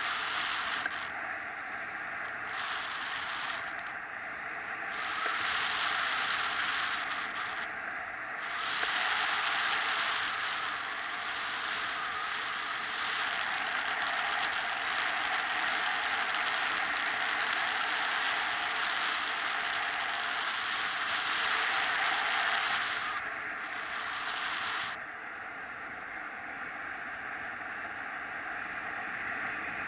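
Wind rushing over the camera microphone of a paraglider pilot in flight: a steady hiss that swells and eases, then drops lower near the end.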